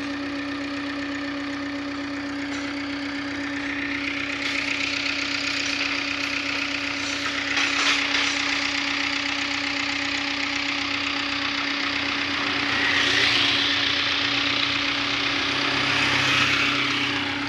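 Excavator's diesel engine running with a steady hum. Its note rises and falls several times as the hydraulics take load, loudest about three-quarters of the way through and again near the end.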